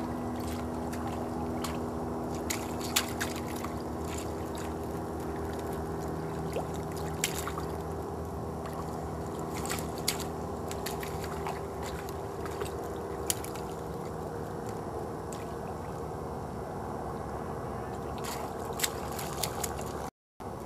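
Thin pond ice cracking and broken ice shards clicking and clinking as a dog steps through the frozen shallows, with water sloshing. The sharp clicks come at irregular moments over a steady low background hum.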